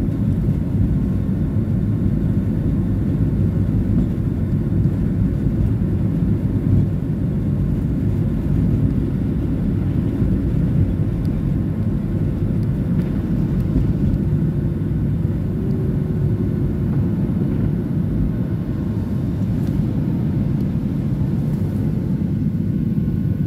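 Cabin noise of a Boeing 737-800 on its takeoff roll: its CFM56-7B turbofans at takeoff thrust over a steady low rumble from the runway, the jet lifting off near the end.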